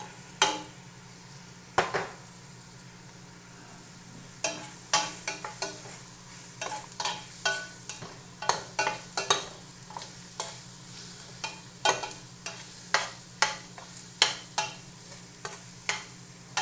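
Diced chicken gizzard dropped into hot oil in a stainless steel pot, then a metal spoon stirring it, knocking and scraping against the pot about twice a second, while the oil sizzles. A steady low hum runs underneath.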